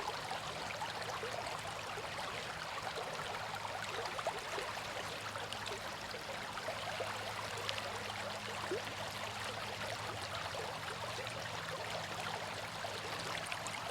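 Creek water running steadily, an even rushing noise.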